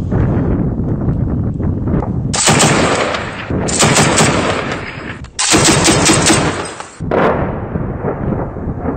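Heavy machine gun firing in three long bursts from about two and a half seconds in until about seven seconds in. Before and after the bursts there is a low, rumbling noise.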